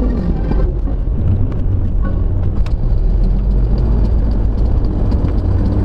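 Steady low rumble of a car driving on a wet road, heard from inside the cabin: engine and tyre noise, with a few faint scattered clicks.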